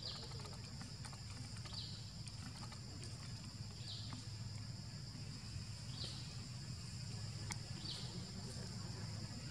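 Insects buzzing steadily at a high pitch, the buzz dipping and swelling about every two seconds, over a low steady rumble, with a few faint ticks.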